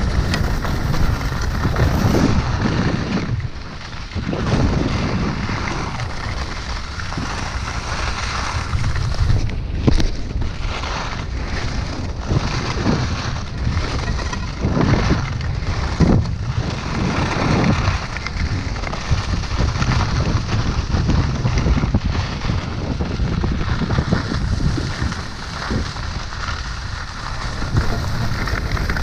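Wind buffeting the microphone while skiing downhill, mixed with skis hissing and scraping over packed snow; the noise swells and dips unevenly, with one sharp tick about ten seconds in.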